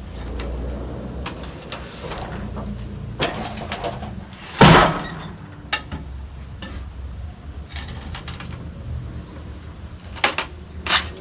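Sawmill engine idling with a steady low hum, with scattered clicks and knocks and one loud knock about four and a half seconds in.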